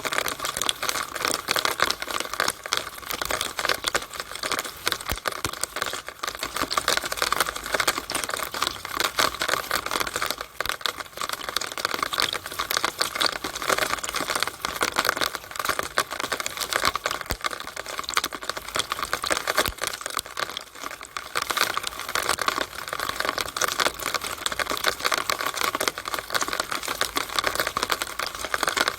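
Rainwater running and dripping inside a rain downspout: a dense, rapid patter of drops and splashes that goes on without a break.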